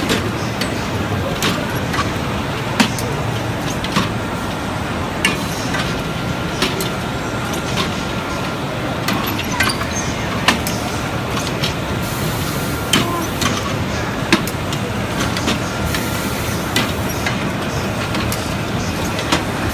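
Polyurethane injection moulding machine running: a steady mechanical noise with sharp clacks and knocks about every second or so, and a faint steady whine for a while in the middle.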